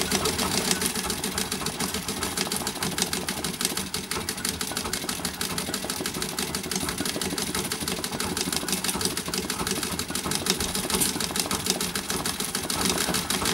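Vintage straight-stitch treadle sewing machine running steadily at speed during free-motion embroidery: a rapid, even clatter of the needle and mechanism.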